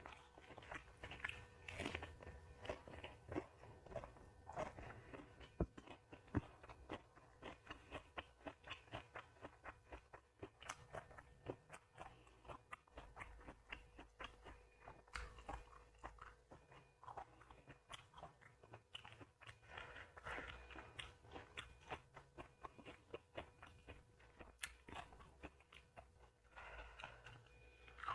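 A person chewing and crunching food, a steady run of short crunches about two to three a second.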